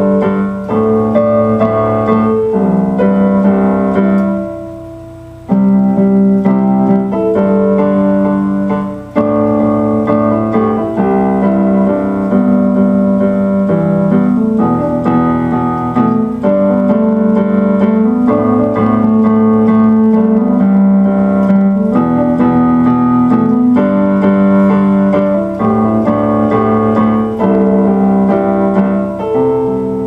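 Solo electronic keyboard playing slow, sustained piano chords over a changing bass line. The sound dies away briefly about four seconds in, then the next chord comes in.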